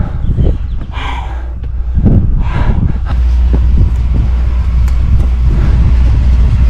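Wind buffeting the microphone: a loud, steady low rumble that grows stronger about halfway through and cuts off suddenly at the end.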